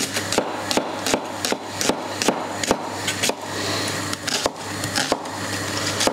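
Kitchen knife chopping an onion on a wooden chopping board: sharp knocks of the blade on the board in a steady rhythm, a little under three a second.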